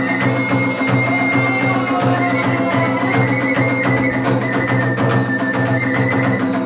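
Iwami kagura music: a drum keeping a steady beat under a high, held flute melody, with light percussion.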